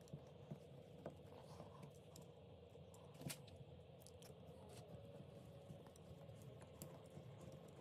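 Near silence with a few faint clicks and taps from a small screwdriver driving tiny screws into a brass hinge on a log box, and from the box being handled. The clearest click comes about three seconds in.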